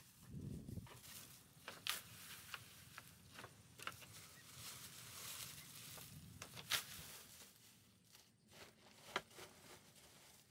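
Leafy branches rustling as they are handled and dropped onto a bamboo floor, with a scattering of sharp twig snaps and cracks.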